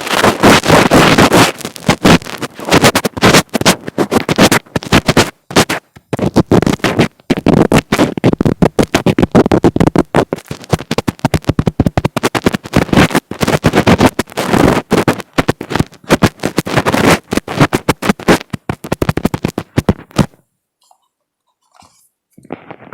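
Hands rubbing, scratching and tapping directly on an earphone microphone, a loud, dense crackle of close-up friction with short breaks. It stops abruptly about 20 seconds in.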